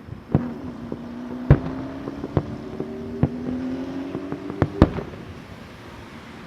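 Starmine fireworks bursting: about six sharp bangs, two of them close together near the five-second mark. Under them a steady low droning tone rises slightly in pitch for about four and a half seconds, then stops.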